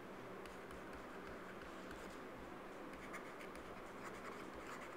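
Faint scratching of a stylus writing, in short strokes over a low steady hiss.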